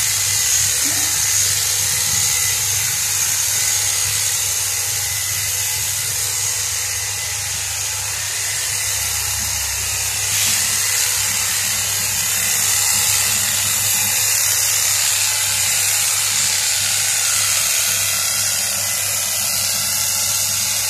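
Makita electric hedge trimmer running steadily with its blades cutting through a hedge, a continuous buzzing hiss without pauses.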